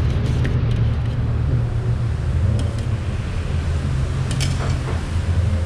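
Steady low mechanical rumble, with a couple of faint light taps about two and a half and four and a half seconds in.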